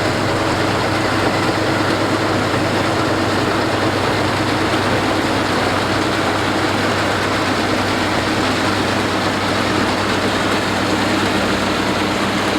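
Harvesting machine, most likely a rice combine harvester, running steadily with a constant engine hum and a dense mechanical noise over it.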